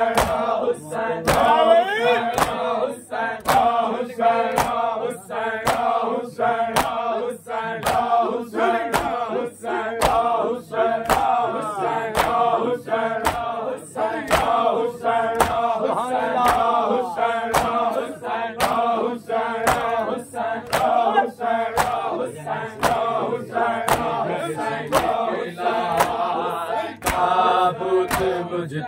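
A group of voices chanting a noha in chorus, with hands striking chests in a steady matam beat, about three strikes every two seconds.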